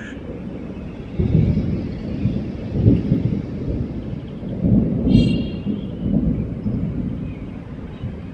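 Rolling thunder: a long low rumble that breaks in suddenly about a second in, swells in several waves, then dies away near the end.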